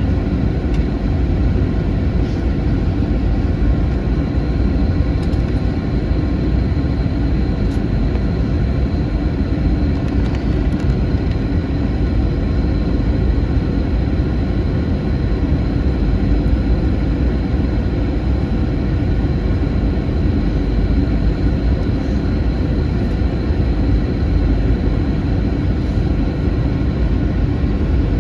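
Steady cabin noise inside an Airbus A321 in flight: a deep, even rumble of engines and airflow, with a faint high whine that comes in a few seconds in.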